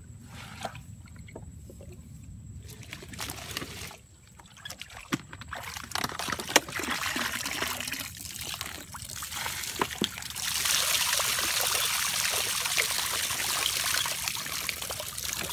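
Water poured from a plastic bottle, trickling and splashing into and around a plastic bucket. It becomes a heavier, steady pour from about ten seconds in.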